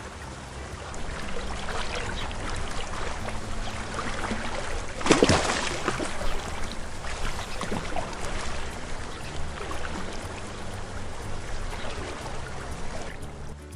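Water sound effect: sloshing and splashing water, with one loud splash about five seconds in, over soft background music.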